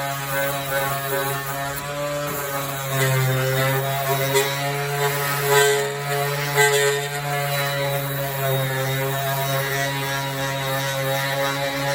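Electric sanding tool running at a steady pitch, its motor whine carrying on without a break while a small part is sanded.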